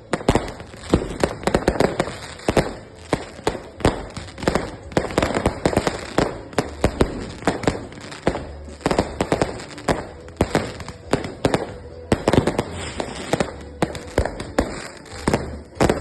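Fireworks going off in rapid, irregular succession: many sharp bangs and crackles overlapping without a break.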